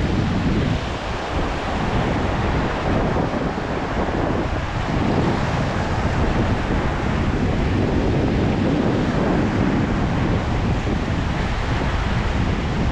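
Choppy sea surf washing and breaking close by, with wind buffeting the microphone.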